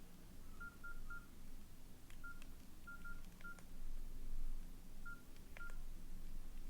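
Nokia N80 keypad tones: short single-pitch beeps as its keys are pressed, about nine in irregular groups, with a few light clicks of the buttons.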